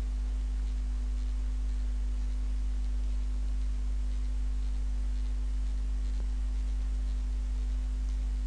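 Steady low electrical hum with a fainter higher tone above it, unchanging throughout, typical of mains hum picked up by the recording setup.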